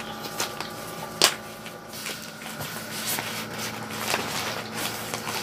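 Rustling and handling of a thin shopping bag and parcel packaging, with scattered small clicks and one sharp tap about a second in, over the steady hum of a bedside medical machine.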